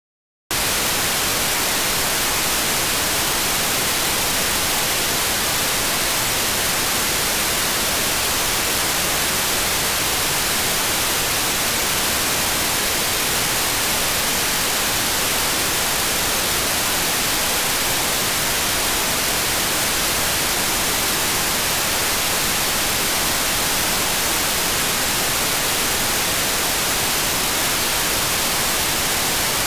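Steady hiss of an unsquelched FM receiver: an AirSpy Mini SDR tuned to the ISS downlink on 145.800 MHz, hearing only noise because the ISS has not yet risen above the horizon. The hiss starts suddenly about half a second in.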